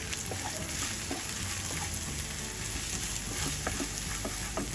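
Chopped onions and ground spices sizzling in hot oil in a frying pan, stirred with a wooden spatula that scrapes and taps against the pan now and then.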